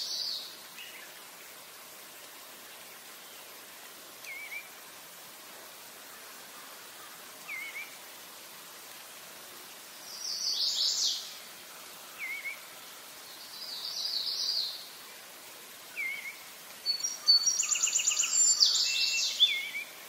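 Wild songbirds singing: short high trilled phrases a few seconds apart and a longer, louder song near the end, with soft lower single chirps in between, over a steady outdoor hiss.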